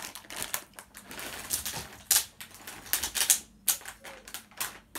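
Plastic sweets bag crinkling as it is handled and rummaged through, an irregular run of sharp crackles.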